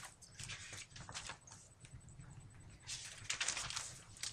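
Paper rustling and shuffling as sheets are handled, in short irregular bursts, with a louder flurry about three seconds in.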